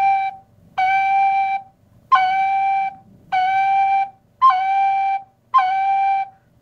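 Tin whistle playing the same short G note six times, about one a second. Several of the notes open with a brief higher blip before settling. This is the blip slide: a slide onto G with a cut, a finger lifted quickly just as the G is blown.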